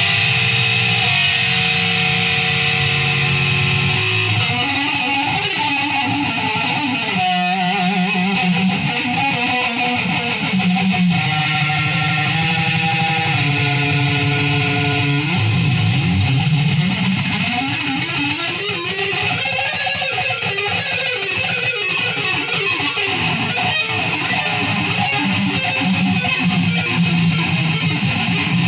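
Electric guitar playing held notes and chords that change every few seconds, with a wide vibrato on one note about seven seconds in.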